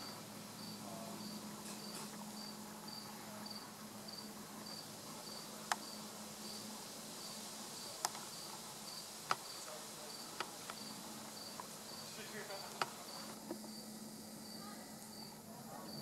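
Cricket chirping steadily in short high-pitched pulses, a little under two a second, with a few sharp clicks in the middle of the stretch.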